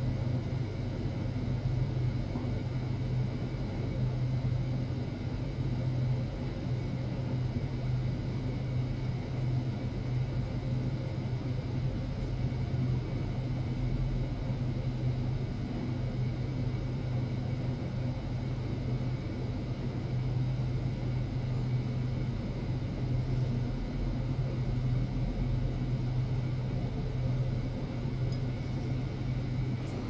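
Steady low hum with a rumbling undertone, even throughout, with faint steady higher tones above it.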